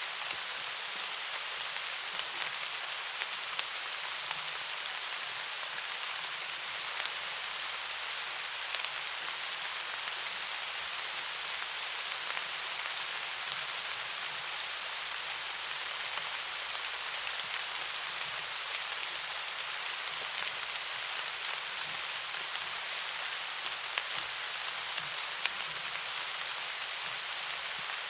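Steady rain falling, an even hiss with occasional sharper ticks of single drops.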